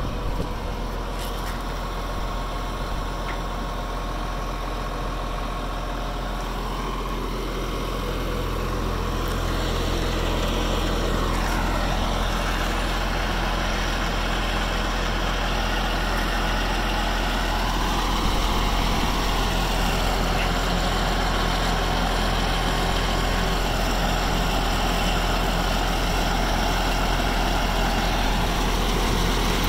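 Caterpillar 963C track loader's diesel engine idling steadily, growing louder about ten seconds in.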